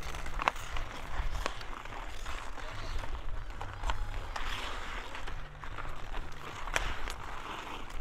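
Pond hockey game on outdoor ice: several sharp clacks of sticks and puck, the strongest about half a second in and near the end, over a steady scraping haze from skates.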